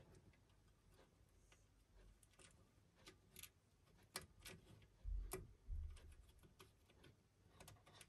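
Faint scattered clicks and light taps of fingers pushing a spade terminal onto the new carbon brush holder of a Siemens washing machine motor, with a couple of soft low bumps about five seconds in.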